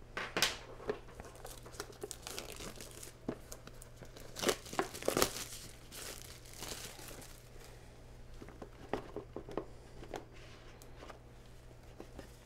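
Cellophane wrap being torn and crumpled off a small cardboard box, in irregular crackles, loudest about half a second in and again around four to five seconds in.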